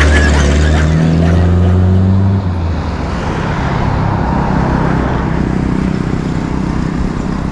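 Loud motorcycle engine, likened to a Harley-Davidson, running with a deep low note that steps up in pitch about a second in and drops away after about two and a half seconds, leaving steady traffic noise.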